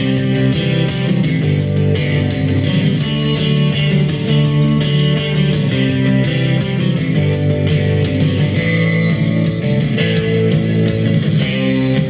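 Guitar music played loud on a Bose SoundLink Revolve+ II portable speaker, measuring about 90 dB(A) on a sound level meter.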